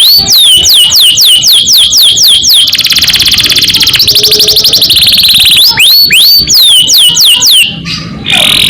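Domestic canary singing: a run of high, falling whistled notes about four a second, then a fast rolling trill held for about three seconds, then more falling notes. The trill is the 'ngerol' rolling song that canary keepers prize.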